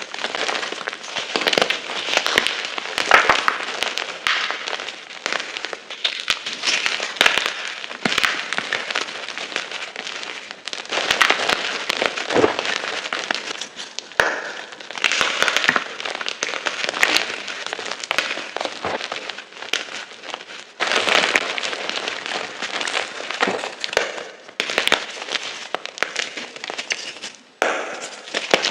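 Block gym chalk being crushed and crumbled, a dense run of crisp crunching and crackling that comes in surges of a few seconds with brief lulls between them.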